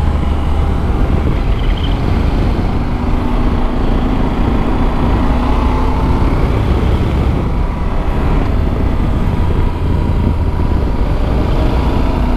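Yamaha Super Ténéré 1200's parallel-twin engine running at steady cruising revs, heard from the rider's helmet under heavy wind rumble.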